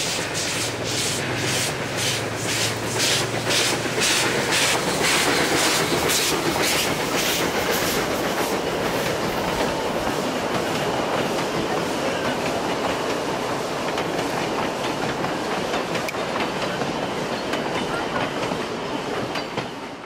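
Puffing Billy narrow-gauge steam locomotive working across a timber trestle bridge, its exhaust chuffing evenly about twice a second. After about eight seconds the chuffs fade and the carriages roll past with a steady rumble of wheels on rail.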